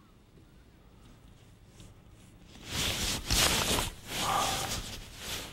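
Rustling of a rain suit as the angler lifts and works the fishing rod: a few loud bursts of rustle starting about halfway through.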